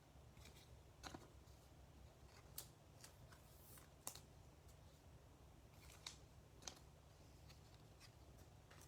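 Near silence with a few faint, short clicks and light rustles, about five spread through the stretch: trading cards and packs being handled.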